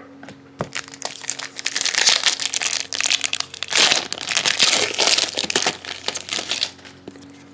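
Foil wrapper of a baseball card pack being crumpled and crinkled in the hands: a dense crackling that starts about a second in and dies away near the end.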